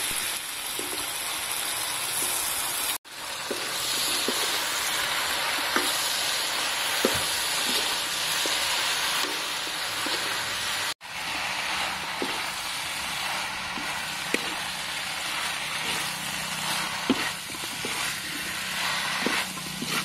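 Bok choy and pork liver sizzling in a hot steel wok while a metal spatula stirs and tosses them, with scattered clicks of the spatula against the pan. The sizzle breaks off twice for an instant.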